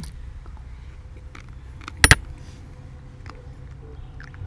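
A metal teaspoon clinking twice in quick succession about two seconds in, set down after tasting, over a steady low rumble.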